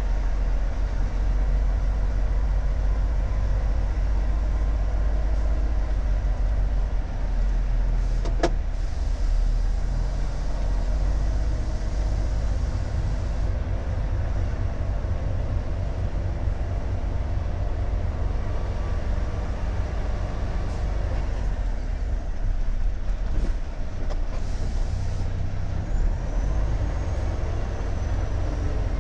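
Cab interior of a Volvo FH truck rolling slowly: the diesel engine and drivetrain give a steady low drone. A sharp click comes about eight seconds in, followed by a few seconds of hiss, with another short hiss later.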